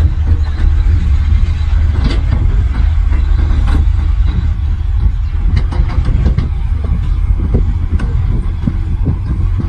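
Heavy earthmoving machine's diesel engine running steadily with a deep low rumble, with scattered metallic clanks and knocks over it.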